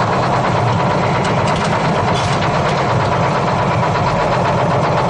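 Detroit Diesel 6-71 two-stroke inline-six diesel in a 1968 GMC water truck, running steadily.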